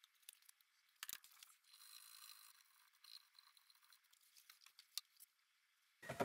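Near silence, with faint light scratching and a few small ticks of a cotton swab dampened with isopropyl alcohol rubbing browned flux off a circuit board.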